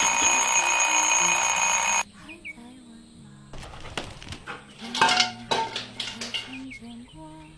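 Alarm clock ringing loudly and continuously, cutting off suddenly about two seconds in. After that a soft stepped melody plays quietly, with a few light clicks and knocks.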